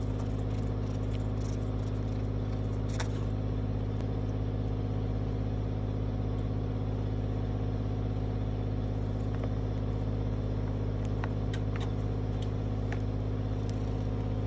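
Steady low mechanical hum of a running motor or machine, unchanging throughout, with a few faint soft clicks.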